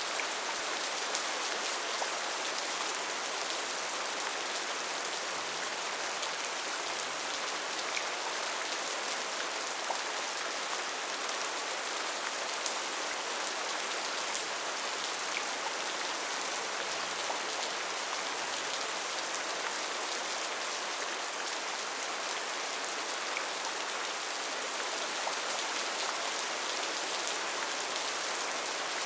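Steady rain falling on a tin (sheet-metal) roof: a dense, even hiss of drops with faint individual ticks scattered through it.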